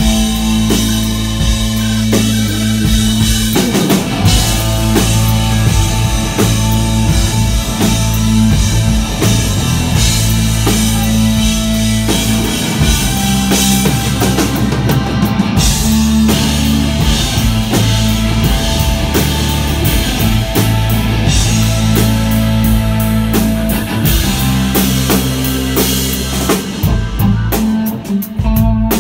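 Live rock band playing loudly: drum kit, bass guitar and electric guitar, with long held bass notes under the band.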